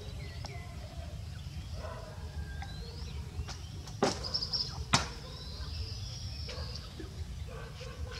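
Small birds chirping in the background over a steady low rumble, with two sharp clicks about a second apart near the middle.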